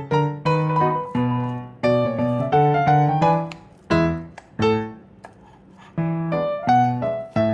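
Background music: solo piano playing a melody of struck notes, pausing briefly about five seconds in.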